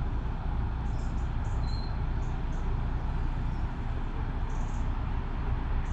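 Narrowboat's diesel engine running steadily at a low, even cruising rumble, with faint high chirps now and then.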